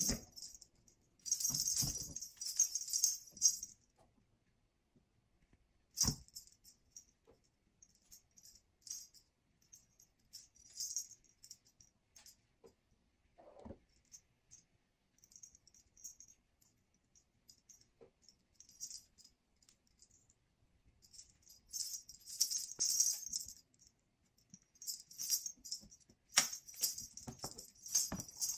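Bursts of light jingling from a feathered wand cat toy as a kitten bats and grabs at it, with a few knocks of the kitten landing on the hardwood floor.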